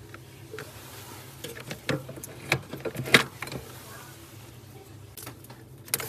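Hands handling the wire leads of a refrigerator's defrost heater beside the evaporator coil: light rustling with several small clicks and knocks scattered through.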